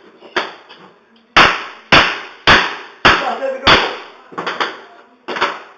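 A computer hard drive being struck hard again and again, about two blows a second, to force it open; the blows are loudest in the middle and weaker near the end.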